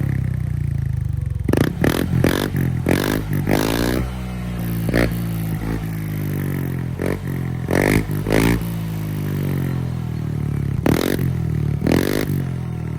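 Honda Click scooter's single-cylinder four-stroke engine running through an Apido V4 aftermarket exhaust, idling and blipped repeatedly. Each throttle blip gives a sharp rise in revs that drops back to idle, in quick clusters at first, then spaced out with a few seconds of steady idle in the middle.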